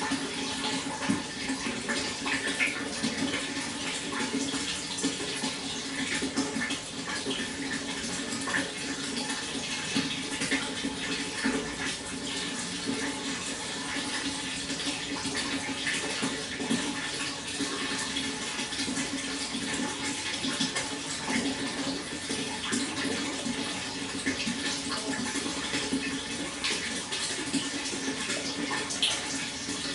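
Water flowing steadily, with many small splashes and drips.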